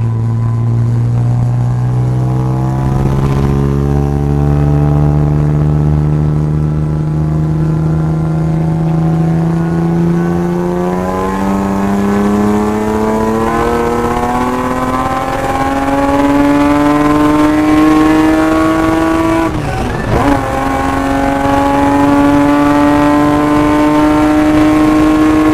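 Supercharged M50 straight-six of a BMW E36 325i Compact, heard from inside the cabin, accelerating under load with its note rising slowly and steadily. About twenty seconds in, a brief break and a small drop in pitch mark an upshift, after which it pulls on and keeps climbing.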